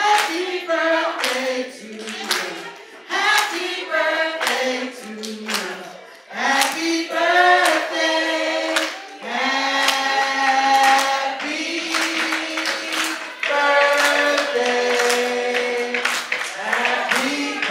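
A group of voices singing in chorus, with rhythmic hand clapping on the beat.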